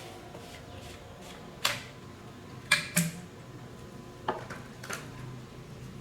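Metal parts or tools clinking and clanking: five sharp knocks, two close together about three seconds in, one of them ringing briefly.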